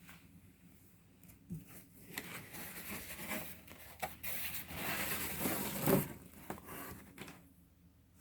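Quiet rustling and rubbing handling noise with scattered light clicks, loudest about six seconds in.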